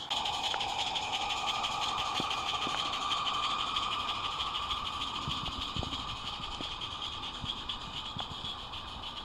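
Garden-scale live-steam locomotive (a Roundhouse model of SR&RL #24) running while pushing a snow-plow car: a steady hiss of steam with rapid, even exhaust beats, slowly fading as it moves away. Light clicks of the wheels on the track come now and then in the second half.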